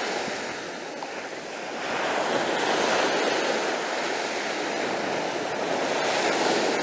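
Ocean surf breaking and washing up onto a sandy beach, swelling louder about two seconds in.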